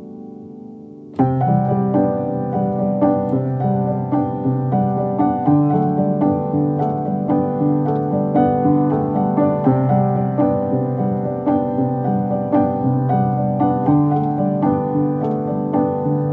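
Background piano music: a held chord fades out, then about a second in a louder, flowing piano passage begins with a steady stream of notes.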